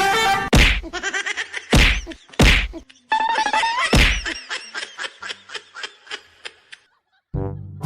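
Four loud whacks over gliding whistle-like tones and music, then a run of quick ticks that thins out and stops shortly before the end.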